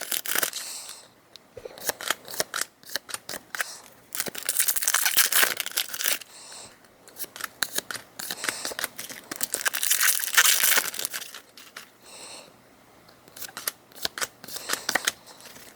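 Foil Pokémon booster packs being torn open by hand, the wrappers crinkling, in several spells of rustling with short pauses between.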